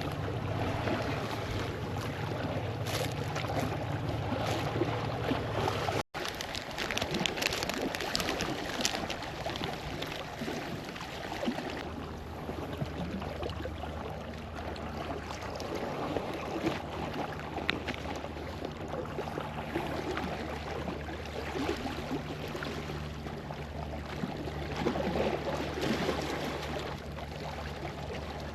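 Water lapping and sloshing against the hull of a small pedal-driven fishing boat, a steady irregular wash with small splashes, broken by a momentary dropout about six seconds in.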